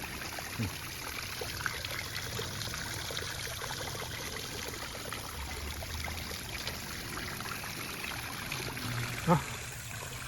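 Water from a small homemade rock waterfall trickling and splashing steadily over stacked stones into its pond. A short louder sound breaks in about nine seconds in.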